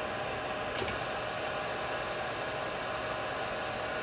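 Wagner heat gun running steadily on high heat, about 1050 °F, blowing hot air onto a soldered copper pipe joint to soften the solder: an even rushing hiss with a faint steady whine. A light click comes just under a second in.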